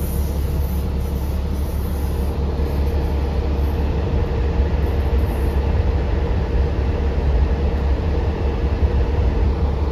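Steady low rumble inside a moving city bus, its engine and road noise, with a faint steady hum.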